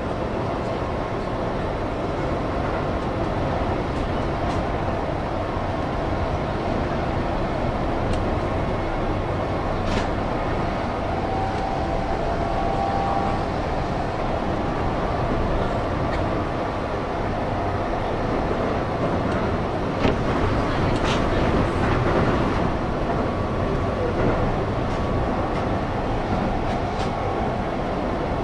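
Keihan electric train running at speed, heard from inside the leading car: a steady rumble of wheels and running gear, with a few sharp clicks, the loudest about twenty seconds in.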